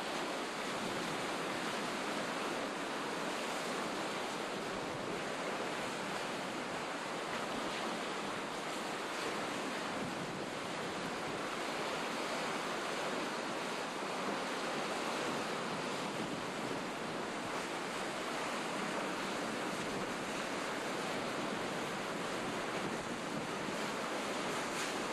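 Steady, even rushing of sea surf and wind, without distinct breaks or surges.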